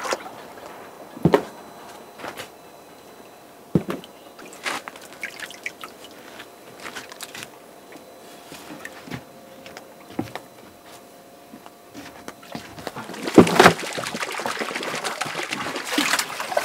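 Scattered small splashes and knocks of someone working by hand in shallow muddy pond water. About thirteen seconds in comes a longer, louder rush of splashing as a basin of red clay soil is tipped out and shaken into the water.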